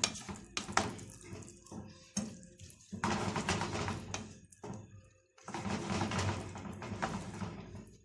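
Sweet and sour sauce thinned with water bubbling in a pan over raised heat, in two stretches with a brief break between them, after a few light utensil clicks in the first seconds.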